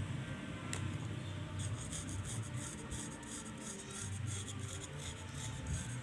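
Rapid, fine scratchy strokes through hair while it is searched for head lice, starting about a second and a half in and running in quick succession, over a low hum.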